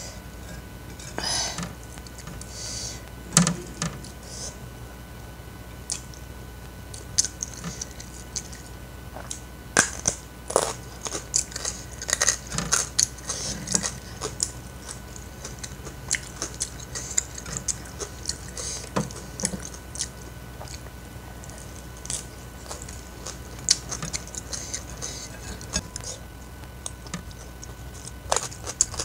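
Close-up eating sounds: chewing and wet mouth clicks and smacks at irregular intervals, with fingers picking at rice and fish. A steady low hum runs underneath.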